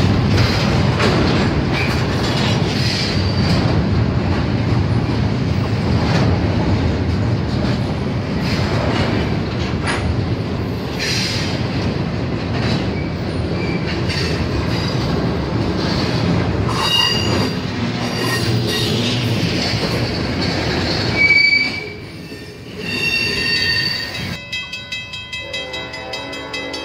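Double-stack intermodal freight train rolling past a grade crossing: a steady rumble and clatter of wheels on rail, with high wheel squeals over the last several seconds of the train. Near the end the train sound drops away and a steady ringing with a quick, even pulse takes over.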